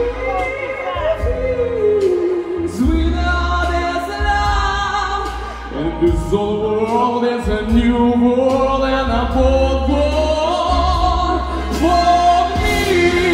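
A man singing live into a handheld microphone over pop backing music with a steady bass; his voice slides and wavers through long sustained runs.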